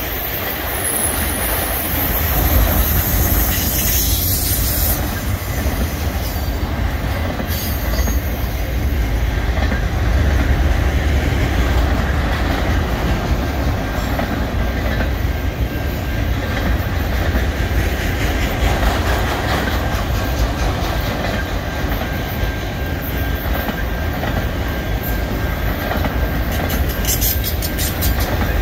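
Freight train of auto rack cars rolling steadily past, a continuous deep rumble of steel wheels on rail with clattering over the joints. A thin, faint wheel squeal joins about halfway through.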